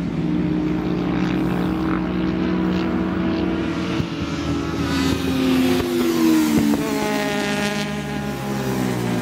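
Racing motorcycle engines running hard on the circuit, their notes falling and rising in pitch; a rising engine note near the end as two bikes come through the corner.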